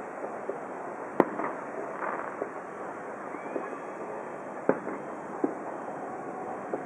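Distant fireworks display: scattered sharp bangs, the loudest about a second in and just before five seconds, with many fainter pops in between.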